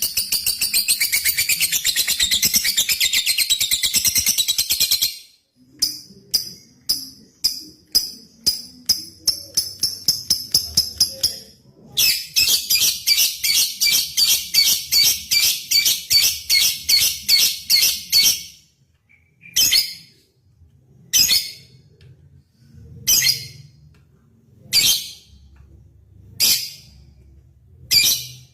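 Lovebird singing: a long rapid chattering trill (the 'ngekek'), then a run of sharp ticking calls two or three a second (the 'ngetik'), a second long trill, and then single short calls about every second and a half.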